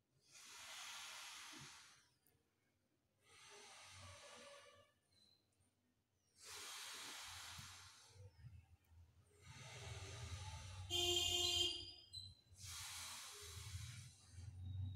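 Slow breaths drawn in and let out through one nostril at a time in alternate-nostril breathing (anulom vilom pranayama): about five airy swells of roughly two seconds each, with short silent pauses between them. About eleven seconds in comes a brief pitched sound, the loudest moment. A low rumble runs under the second half.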